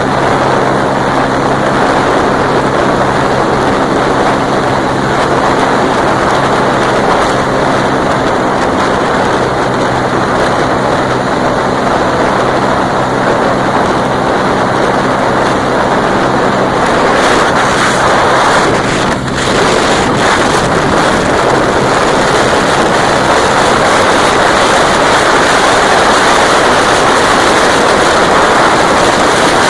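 Honda Dream C100's single-cylinder four-stroke engine running at a steady high pitch through a Roncar aluminium exhaust, under heavy wind noise on the microphone from riding at speed. After about seventeen seconds the engine note fades into the wind rush, with a brief dip in level soon after.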